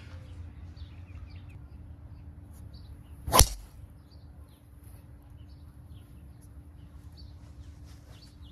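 A golf club striking a ball once, a single sharp crack about three and a half seconds in, over a low steady outdoor background.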